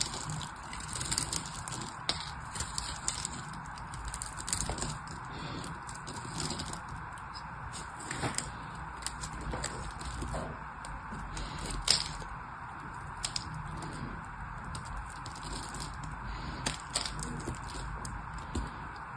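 A knife blade carving a hard bar of soap: irregular crisp crackles and snaps as chips break off and fall, with one sharp snap about twelve seconds in.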